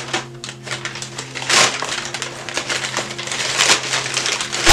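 Crumpled newspaper packing stuffing crinkling and crackling as it is pulled out and unfolded by hand, in a dense, continuous run of crackles.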